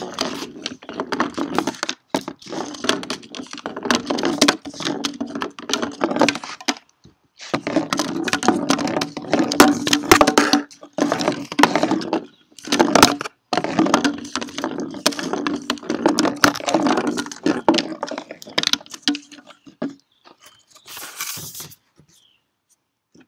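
A lidded coffee can holding rocks and paint, rolled by hand across wooden deck boards: the rocks rattle and clatter inside as the can rumbles over the planks. It goes on steadily, with two short pauses, and stops near the end.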